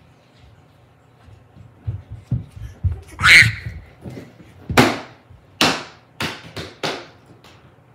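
A series of knocks and thumps: a few low thumps, a louder rough burst, then about six sharp hits, spaced under a second apart and coming closer together near the end.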